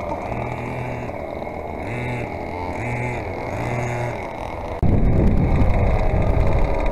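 Small two-stroke petrol engines of large-scale RC buggies revving in repeated short bursts, about once a second. Near five seconds in the level jumps and the engine noise becomes louder and rougher.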